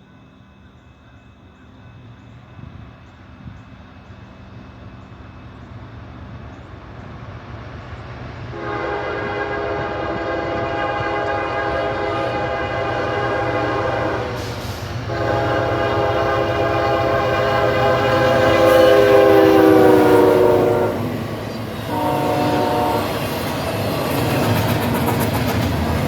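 Norfolk Southern train led by two locomotives approaching at high speed, its rumble growing steadily louder. Then the lead locomotive's air horn sounds a chord: two long blasts, the second dropping in pitch as the locomotive passes, and a short blast. The rumble of the passing train follows.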